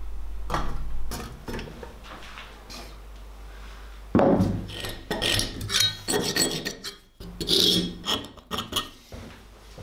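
Rusty iron axe head scraped and knocked on a wooden workbench in a series of separate handling noises, the loudest a sudden scrape about four seconds in, then scratched with a scribe as a cut line is marked on it.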